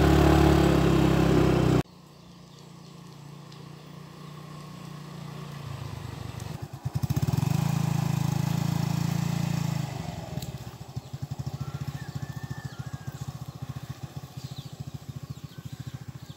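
A small motor scooter's engine runs. The first couple of seconds are loud riding noise heard from on board. Then the engine hum grows louder as the scooter approaches, is loudest for a few seconds, and fades with a rapid pulsing as it rides away.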